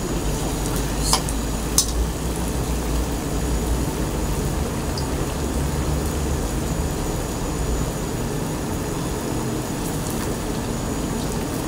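Battered jackfruit pieces deep-frying in an aluminium wok, the oil sizzling steadily over a low rumble. A metal spatula clinks against the wok about one and two seconds in.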